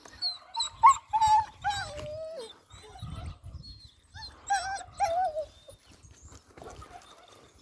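Hunting dog whining in high, wavering cries, the first stretch about a second in ending on a falling note and a second stretch about four seconds in: its excited reaction to a rabbit's foot.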